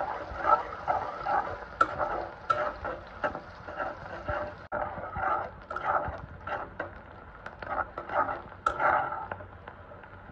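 Metal spatula scraping and stirring around a metal pot of onions frying in hot oil, with sizzling and popping. The stirring stops about nine seconds in, leaving the oil bubbling and crackling more quietly.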